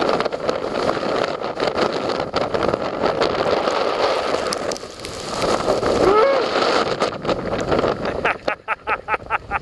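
Wind gusting across the microphone on an exposed snowy summit: a loud, steady rushing with constant buffeting, and a run of quick crackles near the end.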